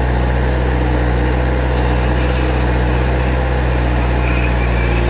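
Heavy-machine engine sound effect, running steadily at one even level with a deep low drone, dubbed in for a toy JCB backhoe loader.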